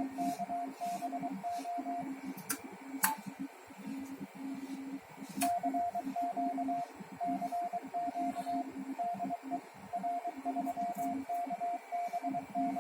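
Morse code (CW) sidetone from a transceiver: a steady beep keyed on and off in dots and dashes as the linear amplifier is keyed, with a lower buzz pulsing along with it. The keying pauses for a few seconds about two seconds in, with a few sharp clicks, then resumes.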